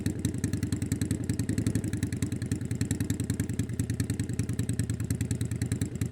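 Motorcycle engine idling steadily, with an even, rapid lumpy pulse of about ten beats a second.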